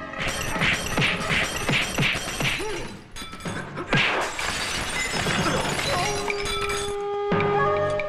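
Fight sound effects: a quick run of punch and kick impacts, about three a second, then a loud crash of breaking glass and wood about four seconds in as a glass-paned wooden window is smashed through. Music with long held notes comes in near the end.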